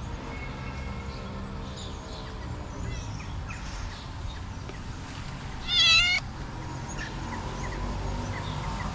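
A domestic cat gives one loud meow about six seconds in, a short wavering call lasting about half a second.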